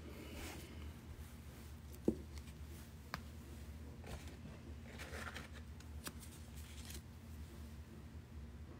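Small plastic zip-lock bags rustling and tumbled stones being handled, with a few sharp clicks, the loudest about two seconds in. A low steady hum runs underneath.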